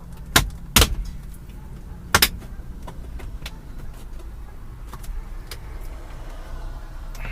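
Plastic dashboard trim clips of a Jeep Wrangler JK snapping loose as a panel is pulled off by hand: a few sharp clicks in the first couple of seconds, over a steady low hum.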